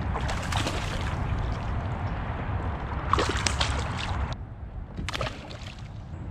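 Water splashing and sloshing beside a kayak, in three bouts.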